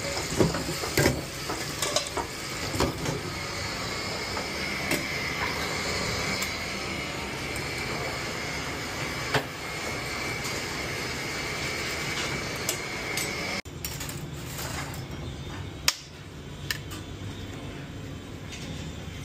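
Restaurant kitchen working sounds: clinks and knocks of metal pots, pans and utensils over a steady background noise with a high steady whine. About two-thirds of the way through, the noise and whine cut off abruptly, leaving quieter clinks of cutlery on metal.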